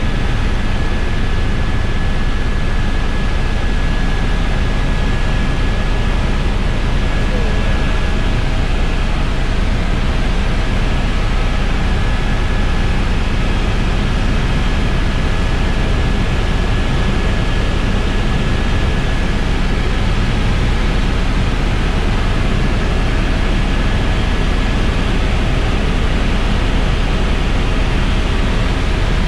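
Steady in-cabin noise of an FX Star (AS350) single-turbine tour helicopter in cruise flight: a dense low rotor and turbine drone with a few faint steady whine tones above it.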